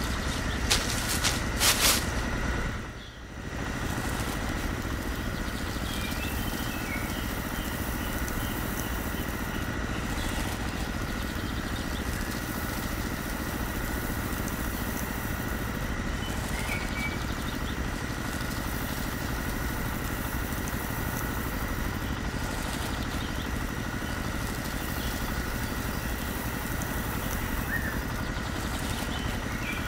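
A few sharp plastic clicks in the first two seconds, then the small motor of a miniature model feed mill running steadily with a faint high whine while it processes rice grains.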